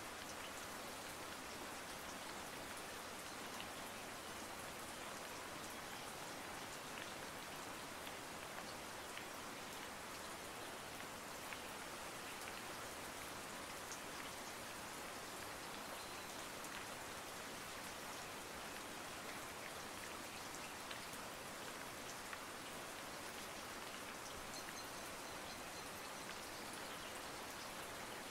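A steady, even rain-like hiss with faint scattered ticks, unchanging throughout.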